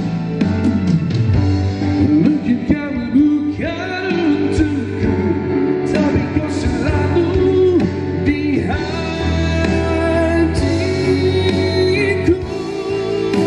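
Pop song playing loud through a pair of Recordingtech LT15A 15-inch active PA speakers during a sound test: a band backing track with a steady bass line and a gliding sung-style melody over it.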